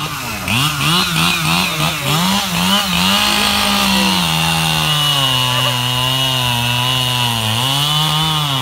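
Echo CS-7310P two-stroke chainsaw revved in quick throttle blips for about three seconds, then held at full throttle. It settles a little lower in pitch as it cuts through a squared timber beam, with a brief dip near the end.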